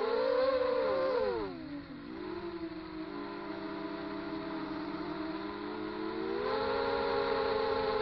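Brushless motors of an FPV racing quadcopter (Multistar 2206 2150kv with DAL 5045 propellers) whining with the throttle: the pitch climbs in the first second, drops away by about two seconds in, holds steady, then steps up again near the end.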